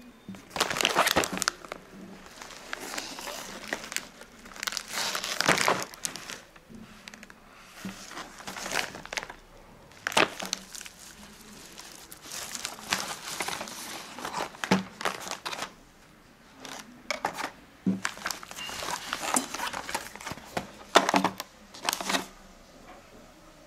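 Plastic shipping mailer bag crinkling and rustling in irregular bursts as it is opened by hand and boxed earphones are pulled out of it.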